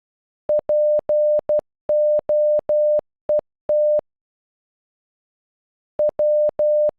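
Morse code played as beeps of one steady tone, spelling POET: dot dash dash dot, dash dash dash, dot, dash. After a pause of about two seconds, the P (dot dash dash dot) sounds again near the end.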